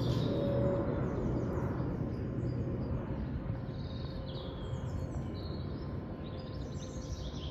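Low rumble of an aircraft passing overhead, slowly fading as it moves away, with small birds chirping repeatedly over it.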